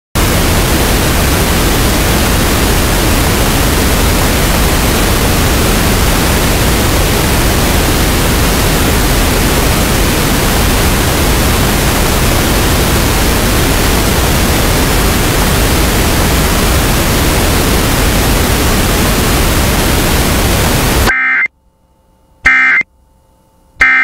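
Loud, steady static hiss that cuts off abruptly about 21 seconds in. It is followed by three short, shrill digital data bursts a little over a second apart: the header tones of an Emergency Alert System broadcast.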